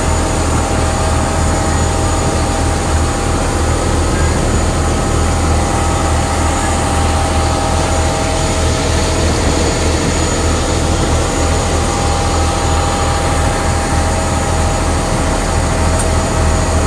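Passenger river ferry's engine running steadily under way, heard on board: a deep, unbroken drone with a few steady tones above it and a constant hiss over the top.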